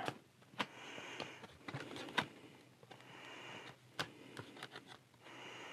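Faint handling of a book-style DVD box set: its cardboard pages are turned and rustle, with a few light clicks and taps, three of them sharp.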